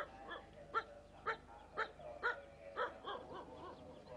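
A dog barking over and over, about two barks a second, with the barks getting weaker and fading out near the end.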